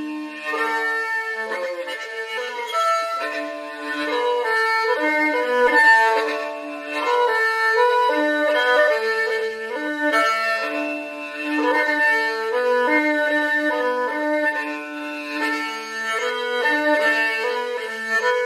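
Hmong two-string spike fiddle with a cylindrical resonator, bowed in a continuous melody of held notes with occasional slides between them.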